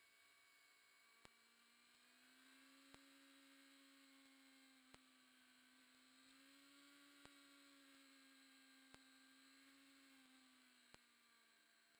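Near silence: no usable audio, only a faint hum drifting slightly in pitch and faint ticks about every two seconds.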